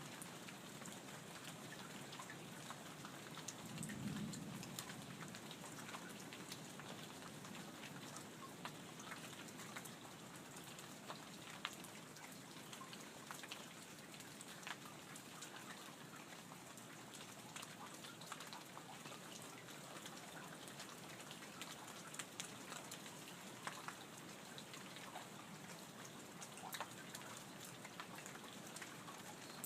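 Light rain falling steadily, with many scattered drips and drop impacts ticking against it. About four seconds in, a brief low rumble swells and fades.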